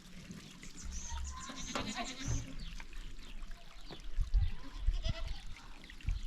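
Goats bleating amid scattered high chirps, with a few dull low thumps about four to six seconds in.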